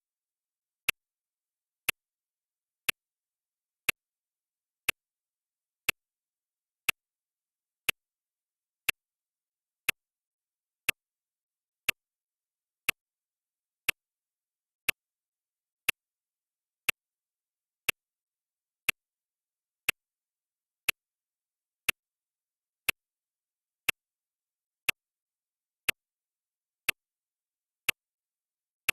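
Clock ticking sound effect: one sharp tick every second, evenly spaced, with silence between the ticks.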